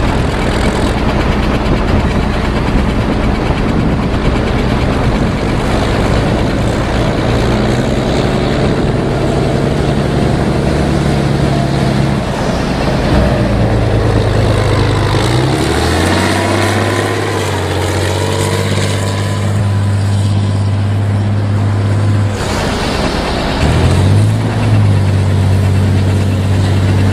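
Heavy diesel engine of a KZKT-7428 tractor truck running under load as it pulls a loaded lowboy trailer past and away. The engine note drops in pitch about halfway through as it passes, then dips and climbs again near the end.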